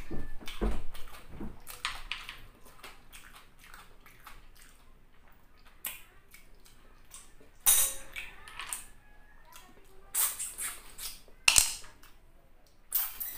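Close-up eating sounds of snails cooked in coconut milk: the meat is sucked out of the shells with short, sharp slurps, amid chewing and small wet mouth clicks. The loudest slurps come in the second half.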